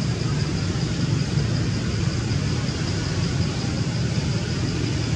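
Steady outdoor background rumble, even throughout, with a faint high steady whine above it; no calls or sudden sounds stand out.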